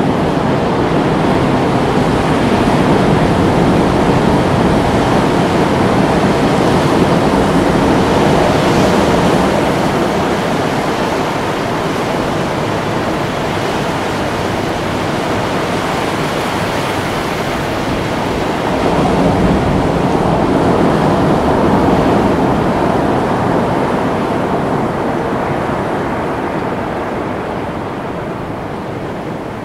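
Ocean surf: a steady wash of breaking waves that swells a few seconds in and again about twenty seconds in, easing off near the end.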